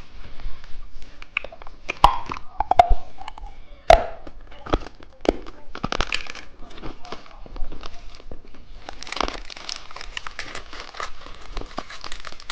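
Plastic candy packaging being handled and unwrapped: crinkling and tearing with many sharp clicks and crackles, growing denser about two-thirds of the way in.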